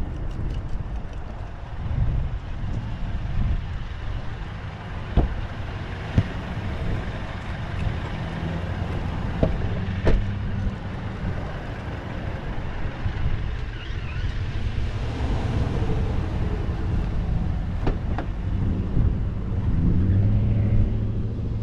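Steady low rumble of a motor vehicle engine running, with a few sharp clicks, one of them a car door latch being opened.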